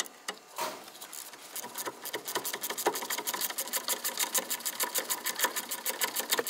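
Ratchet wrench clicking rapidly and evenly as it winds out the loosened front brake caliper bracket bolt, starting about a second and a half in.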